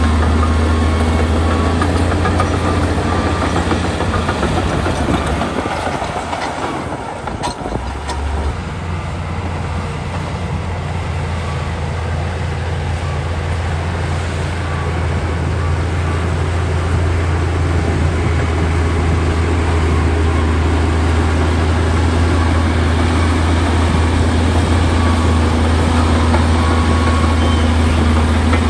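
Heavy diesel engine of earthmoving machinery running steadily with a deep, constant hum. The level briefly drops about six to eight seconds in, then resumes.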